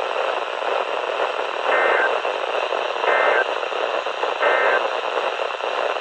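NOAA Weather Radio receiver hissing with static, over which three short bursts of the EAS/SAME digital end-of-message code sound, evenly spaced a little over a second apart. The bursts mark the end of the severe thunderstorm warning broadcast.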